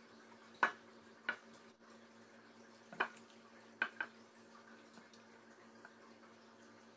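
Silicone spatula scooping stir-fried chicken out of a nonstick frying pan onto a plate: five short, faint scrapes and taps in the first four seconds, over a faint steady hum.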